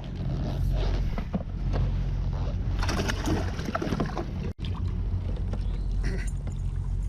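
Water sloshing and splashing at the side of a small fishing boat as a hooked bass is fought close in, with irregular splashes over a steady low hum.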